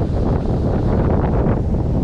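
Wind buffeting the microphone: a loud, gusting rumble.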